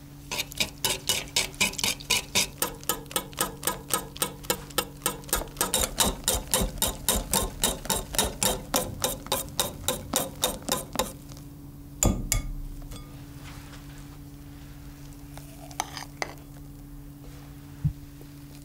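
Wire balloon whisk beating cream and sugar in a glass bowl, the whisk striking the glass in quick, even strokes about four a second as the cream whips up. The whisking stops about eleven seconds in, followed by one loud knock and a few faint clicks.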